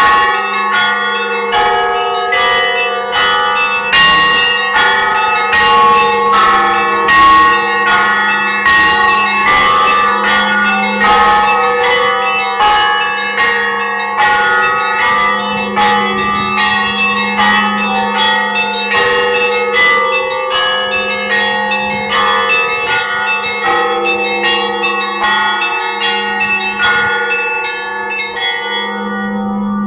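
Russian church bells rung together: smaller bells struck rapidly in a dense, ringing pattern over the low hum of a large bell that is struck again every several seconds. Near the end the smaller bells stop and only the large bell keeps ringing.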